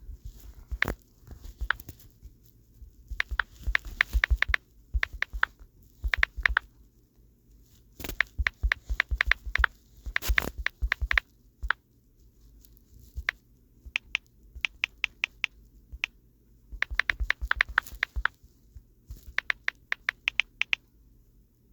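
Typing on a phone's touchscreen keyboard: quick runs of light taps and clicks, several a second, broken by short pauses.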